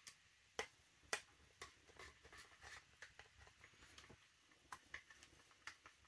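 Faint, scattered clicks and taps of a screwdriver and an airsoft rifle's pistol grip being handled while a grip screw is driven in.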